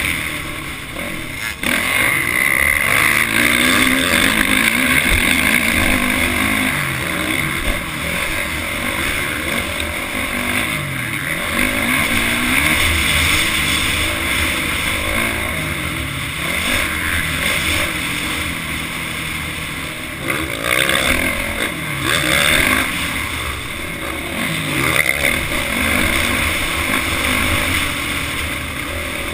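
Motocross dirt bike engine heard from a camera mounted on the bike, revving up and down over and over as the throttle opens and closes around the track's turns and straights. A constant rushing noise runs underneath.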